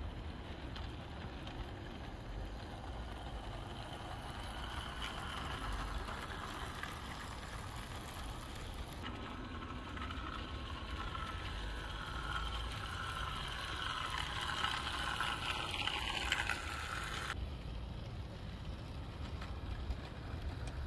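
A 16mm-scale model tractor locomotive running along garden railway track with its wagons, giving a steady small mechanical running sound. The sound is louder for several seconds in the middle.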